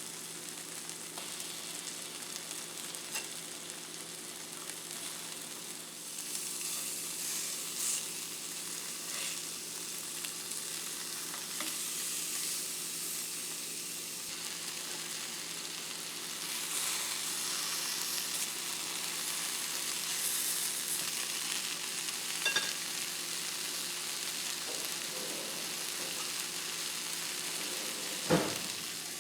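Food sizzling in a hot frying pan, a steady hiss, stirred now and then with a few short clicks of the utensil; a sharper knock comes near the end.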